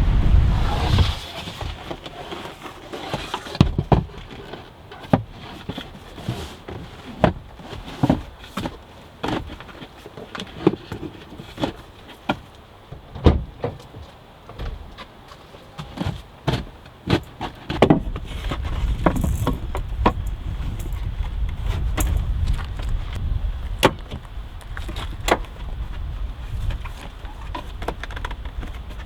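Irregular clicks, knocks and light clatter, as of objects being handled and set down, with a low wind rumble that rises over the second half.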